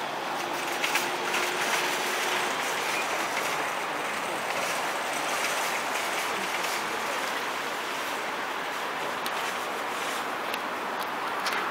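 Steady outdoor hiss of traffic and car-park noise, with a few light clicks and knocks about a second in and again near the end.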